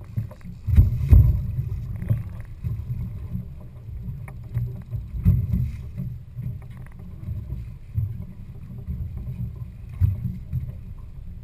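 Boat noise at sea: a low rumble with wind buffeting the microphone in uneven gusts, louder surges about a second in, near the middle and near the end.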